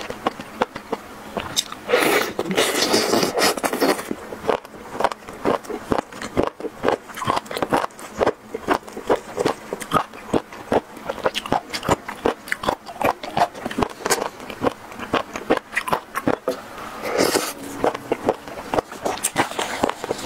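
Close-miked eating sounds: rapid wet chewing clicks and mouth smacks, with two longer noisy stretches about two seconds in and near the end.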